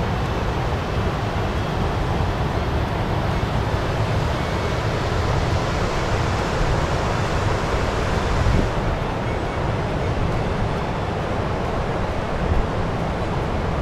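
Shallow mountain river rushing over rocky rapids, a steady loud wash, with wind buffeting the microphone in the low end. A little past halfway the high hiss drops away somewhat.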